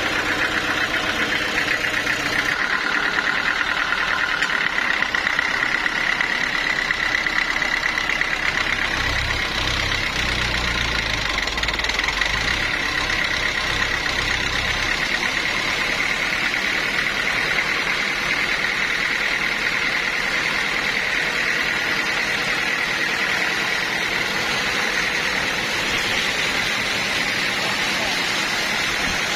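Band sawmill running steadily while sawing a teak log, its blade and motor making a constant high whine over a dense mechanical noise. A deeper rumble swells for several seconds in the middle.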